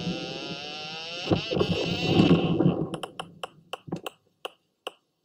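Tag recording of a Blainville's beaked whale's foraging buzz, the sound thought to mark a feeding event: a dense rasp with a rushing sound and rising tones that stops about two and a half seconds in. Separate echolocation clicks follow, a few a second, like knocking.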